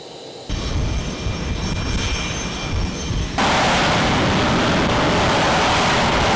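Jet aircraft engines running on a carrier deck: a low rumble with a thin high whine that switches abruptly, about three and a half seconds in, to a much louder, steady rushing roar.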